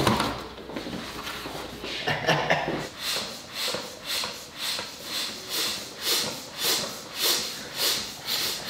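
Rhythmic puffs of rushing air, a little more than one and a half a second, starting about three seconds in, as a large number balloon is inflated.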